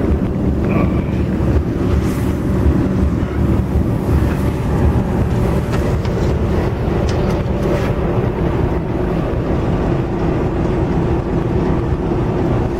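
Diesel locomotive's engine idling: a steady low rumble with a constant hum, heard from inside the locomotive cab.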